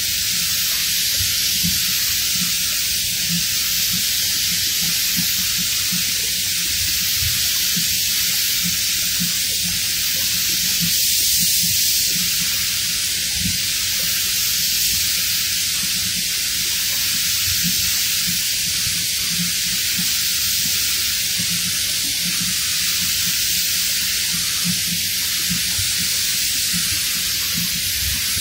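Compressed-air paint spray gun hissing steadily as paint is sprayed onto car body panels, with a low rumble underneath.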